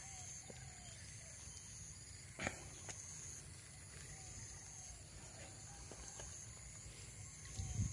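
Faint field ambience: a steady, high-pitched insect trill with a few faint short chirps, and one light tap about two and a half seconds in.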